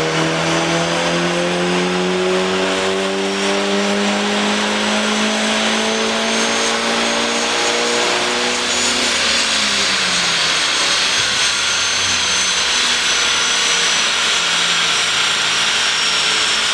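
VW Golf 5 GTI's turbocharged 2.0 TFSI four-cylinder, remapped to Stage 2, pulling hard on a chassis dyno with the revs climbing steadily for about nine seconds. Then the throttle shuts and the engine note falls away, leaving a loud rushing noise and a thin whine from the tyres on the spinning rollers.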